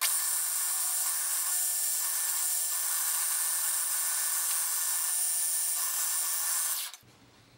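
Drill press driving a twist drill into a metal rod: a steady, high-pitched machine whine with cutting noise. It starts abruptly and cuts off suddenly about seven seconds in.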